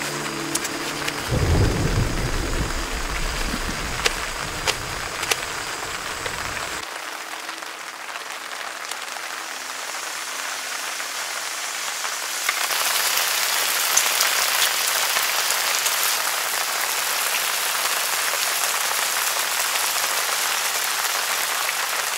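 Steady rain falling, an even hiss, with a low rumble for several seconds near the start and a few sharp knife taps on a cutting board. About twelve seconds in the hiss becomes louder and brighter.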